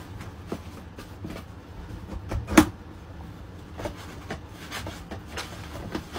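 Folded paper towels handled and tucked into a clear acrylic dispenser box: paper rustling with light taps and knocks, and one sharper knock about two and a half seconds in.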